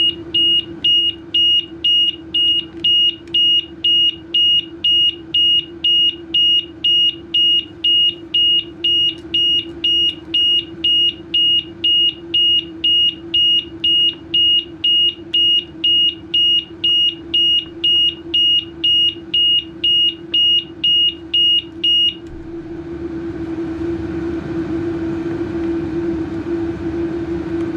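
BMW C400X scooter's anti-theft alarm beeping, a high tone pulsing about twice a second, which stops about 22 seconds in. A steady low hum runs underneath and grows louder after the beeping ends.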